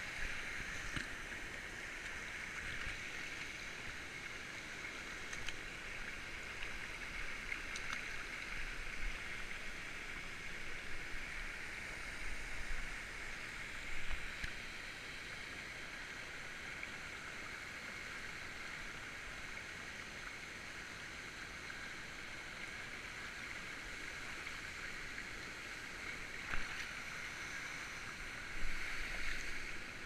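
Shallow rocky mountain stream babbling steadily over stones, with a few brief low bumps, the loudest about halfway and near the end.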